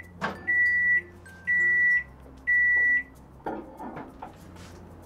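Microwave oven beeping at the end of its cooking cycle: three long, high, single-tone beeps about a second apart. They are followed by a few clicks and knocks as the door is opened.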